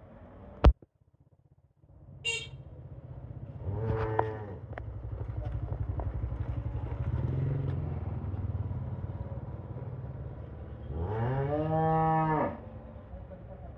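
Holstein Friesian cow mooing: one long moo of about a second and a half near the end, after a shorter call around four seconds in. Under it runs a steady low motor-like drone, and a single sharp click comes just under a second in.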